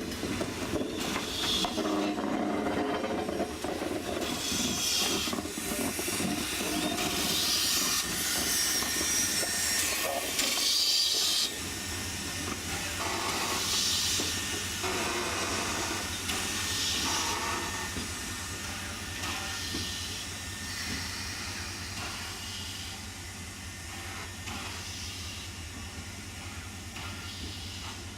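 Alco 2-8-0 steam locomotive hissing steam, the hiss swelling in repeated surges. About eleven seconds in the sound drops suddenly to a quieter hiss over a low steady hum that slowly fades.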